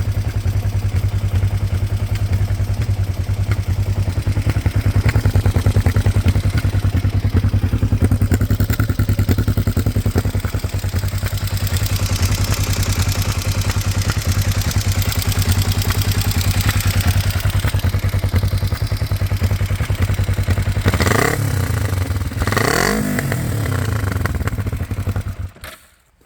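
Kawasaki ER-5 parallel-twin engine idling steadily with a weird clattering noise that the owner suspects comes from the valvetrain. It is revved briefly twice near the end, then shut off.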